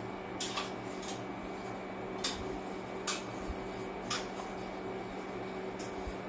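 A few short clicks and clinks of utensils against cookware, about five spread over several seconds, over a steady hum and hiss.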